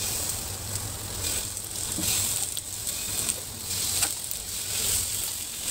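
Raw chicken wings sizzling in a hot, dry non-stick wok with no oil, with several soft taps as more wings are laid into the pan.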